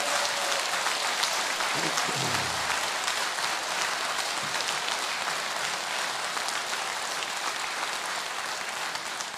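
Audience applauding steadily, the clapping thinning slightly near the end.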